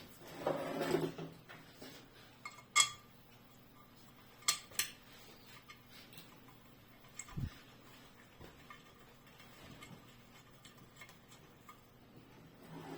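Scattered metal clinks and small clacks as bolts and metal parts of a sewage pump are handled during reassembly, with a rustle about half a second in and a dull knock past the middle.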